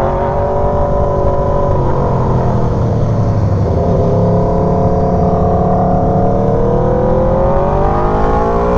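Aprilia Tuono V4 motorcycle's V4 engine running under way, heard from the rider's seat. Its pitch sags a little a few seconds in, then climbs steadily as the bike accelerates through the rest.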